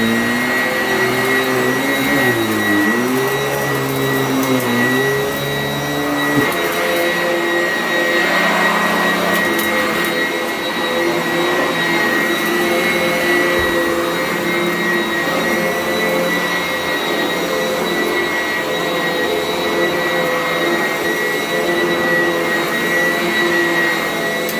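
Sanitaire upright vacuum cleaner running, with a steady high whine over its motor noise. For the first six seconds a lower hum wavers up and down in pitch, then it settles into a steady drone.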